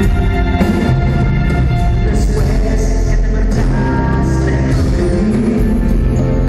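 Background music with a steady beat and singing, in a rock style.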